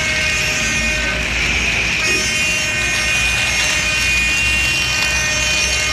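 Battery-powered toy train sounding its electronic horn: a continuous toot made of several held tones, over a low hum.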